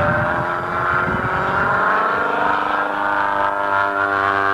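An engine running steadily, its pitch holding nearly level.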